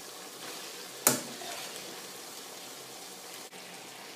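Pan of pesto sauce sizzling steadily as wet fusilli is spooned into it from a pot of boiling water, with one sharp knock about a second in.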